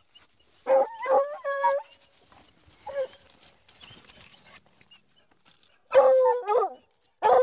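Hunting hounds barking and bawling in short bursts at an animal holed up under a pile of rocks: a cluster of calls, some held, about a second in, a single call near the middle, and another cluster near the end, with faint scrabbling in dry leaves between.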